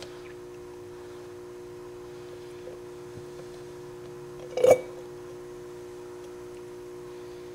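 Steady low hum of a few constant tones, with one short, sharp squelch a little past halfway as a turkey baster draws dirty power steering fluid out of the reservoir.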